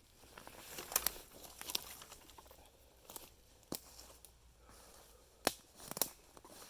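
Dry twigs and brush crackling and snapping, with about five sharp snaps spread over the few seconds.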